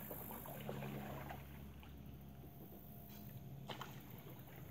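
Faint water sounds of a canoe being paddled through still swamp water, with a light knock about three and a half seconds in.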